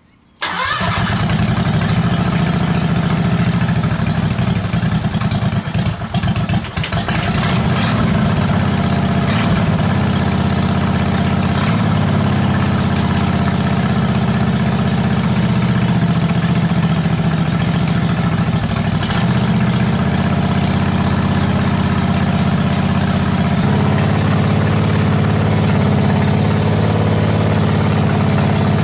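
A 670cc V-twin go-kart engine starts abruptly about half a second in, then idles steadily, with a brief unsteady patch about six seconds in.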